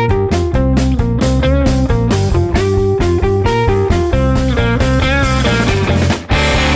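Background rock music led by guitar, over a steady beat, with a brief break about six seconds in.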